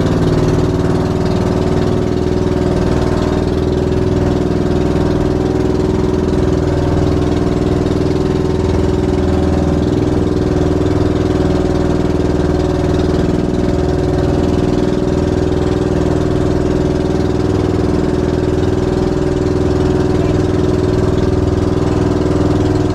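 A fishing boat's engine running steadily at constant speed, with an even, unchanging pitch.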